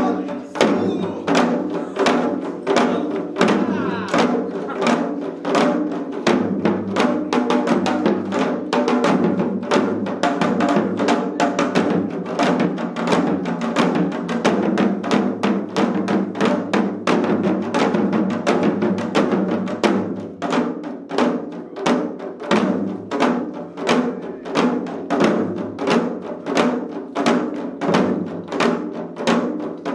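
Several janggu, Korean hourglass drums, played together in seoljanggu: strikes on both drum heads in a steady rhythmic beat. The strokes grow denser and fuller from about six seconds in, then settle back into evenly spaced accented beats after about twenty seconds.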